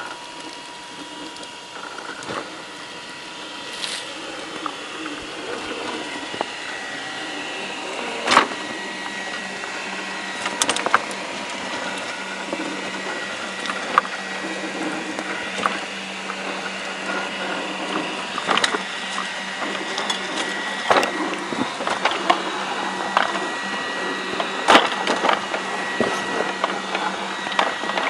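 Scale RC crawler's electric motor and geared drivetrain whining steadily at crawling speed, with scattered clicks and now and then a sharp knock as the tyres and chassis bump and scrape over loose rocks.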